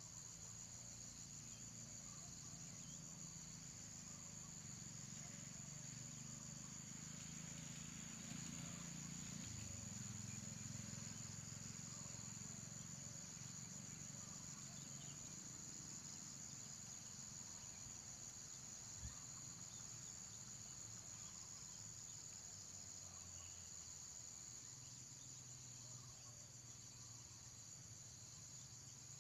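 Steady high-pitched insect chorus, a fine rapid pulsing, over a faint low rumble, with one soft click about two-thirds of the way through.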